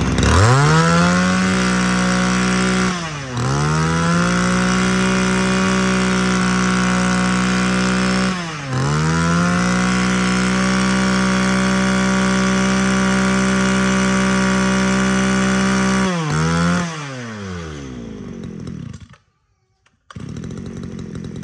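Small two-stroke brush cutter engine, already warm, starting on a light pull and revving straight up to full throttle. The throttle is eased off twice, so the revs dip and climb back. About sixteen seconds in it drops to idle and is switched off a few seconds later.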